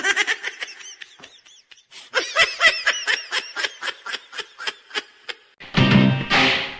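High-pitched giggling laughter in rapid bursts, about four to five a second, with a short break about a second in. Near the end a song with music starts.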